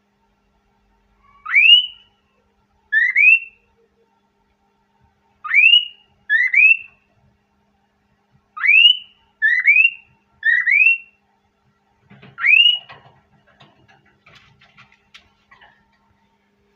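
Male cockatiel giving short rising whistles, eight in all, some in quick pairs: a courtship call from a male eager to mate. Faint rustling and clicking follow near the end.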